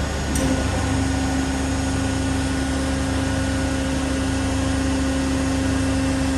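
Fasti CNC folding machine's electric beam drive running with a steady hum while the machine calibrates, with a brief click about half a second in.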